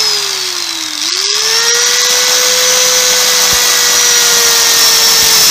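Electric angle grinder running at speed with a paper cutting disc fitted. It gives a steady high whine over a hiss. The whine drops in pitch during the first second, then climbs back and holds steady.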